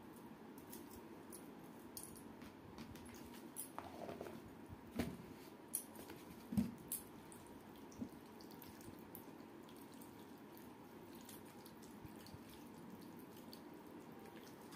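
Faint wet squishing and small clicks of a hand mixing and squeezing water-soaked rice (pakhala) in a steel bowl, with a few short louder squelches in the middle.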